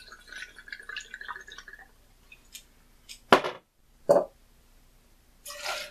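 Tequila trickling from a bottle into a small glass measuring jigger, fading out after about two seconds. Then come two sharp knocks and a short rush of sound near the end.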